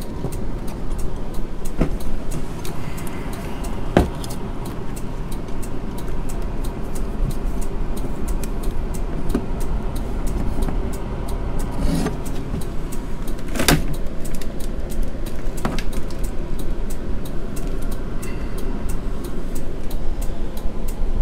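Bundled wiring and plastic connectors being handled behind a motorhome dashboard: rustling with a few sharp clicks and knocks, the loudest about two-thirds of the way through. A steady low hum runs underneath.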